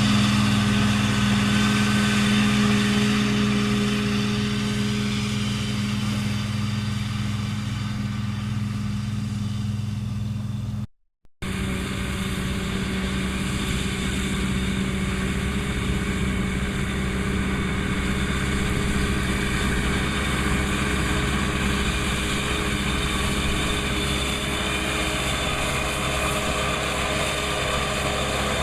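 Massey Ferguson 2600-series tractor's diesel engine running steadily while a disc mower cuts hay, with a steady low hum. The sound breaks off for a moment about eleven seconds in, then carries on.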